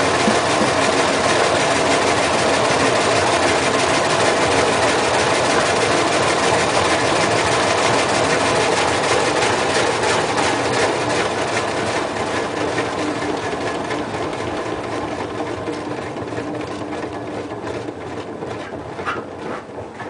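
Hotpoint Ultima WT960 washing machine drum spinning with its door open: a steady motor whine over the rush of the drum. The sound fades gradually through the second half as the spin slows. This slowdown is what happens when the sudslock cuts the spin because of excess suds.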